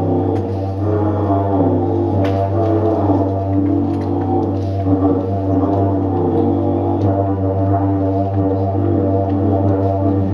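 Driftwood didgeridoo playing a continuous low drone, its overtones shifting as the player changes mouth shape.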